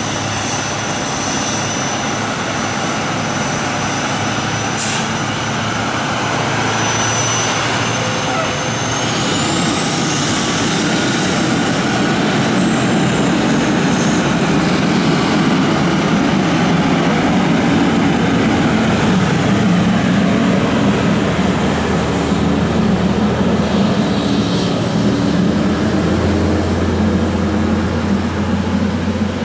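Fire engine's diesel engine running as the truck moves off and drives past, a deep steady engine note with a high thin whine that climbs about a third of the way in and wavers after that.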